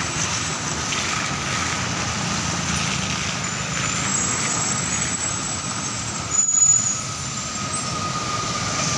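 Convoy of trucks and cars passing on a wet road: steady engine and tyre noise, with a brief louder burst about six and a half seconds in.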